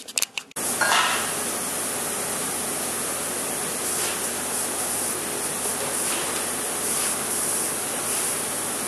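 Miller 211 MIG welder's arc running in a steady, crackling sizzle as a bead is laid on a car's rocker panel, starting after a few short clicks about half a second in.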